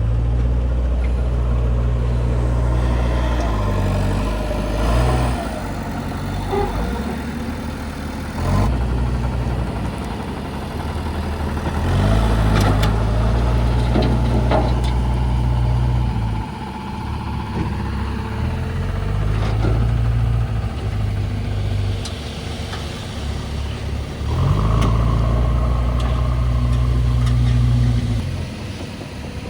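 Heavy diesel earthmoving machinery working: the engines run steadily and swell under load several times. A few short knocks are heard along the way.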